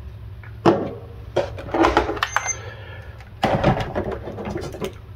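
Several metallic clinks and rattles from a pocket knife and small metal tools being handled and set down on a hard surface, in a few separate bursts, one of them with a short ring.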